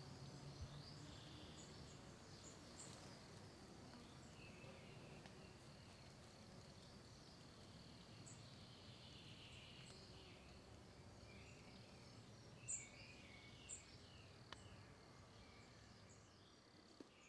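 Near silence: faint outdoor ambience with scattered short high chirps of insects or birds, two of them briefly louder about three quarters of the way through.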